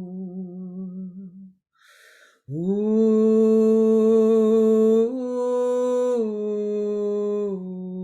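A woman's voice toning long, slow, wordless held notes low in her range. A wavering note fades out, a breath is drawn, then a louder sustained note begins, steps up slightly in pitch about five seconds in and steps back down twice.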